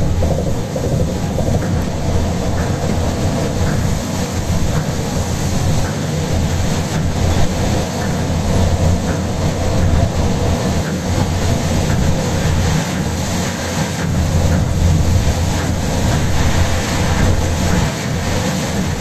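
Tokyo Monorail 10000-series rubber-tyred straddle-beam train running along its guideway, heard from inside the front of the car: a steady low running drone.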